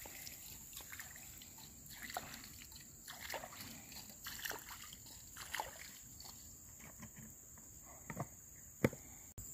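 Faint, irregular sloshing and splashing of water, a splash every second or so, the sharpest near the end. A steady high-pitched insect drone runs under it.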